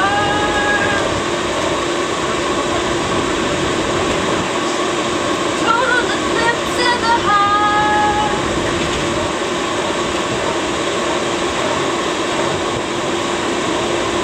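Steady running noise inside a moving light-rail car, with a steady low hum under it. A woman sings unaccompanied over it: a held note at the start and another sung phrase about six to eight seconds in.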